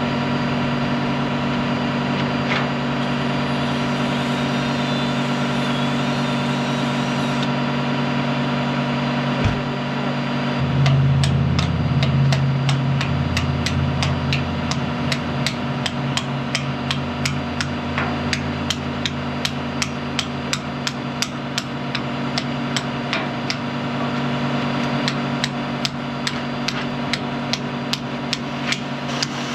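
A diesel excavator engine runs steadily, picking up under load briefly about a third of the way in. From about halfway through, a hammer strikes at a steady pace of roughly two blows a second.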